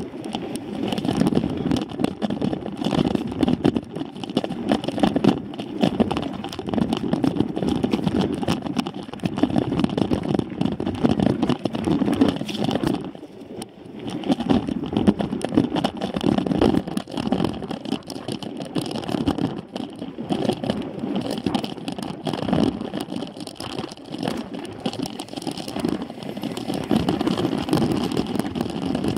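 Mountain bike ridden fast over a dirt singletrack: a steady rumble of tyres on dirt and wind on the microphone, with constant rattling and knocks from the bike over bumps, briefly quieter about halfway through.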